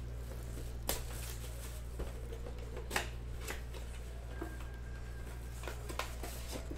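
Plastic shrink wrap crinkling and tearing off a retail trading-card box, then its cardboard flap being opened: scattered sharp crackles and rustles over a steady low hum.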